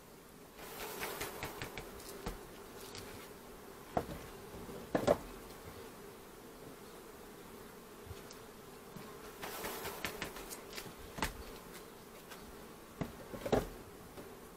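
Honeybees buzzing in a steady hum over an opened hive, with two spells of rustling, about a second in and again around ten seconds, as a bee-covered wooden frame is shaken and handled, and several sharp knocks of the frame against the hive boxes.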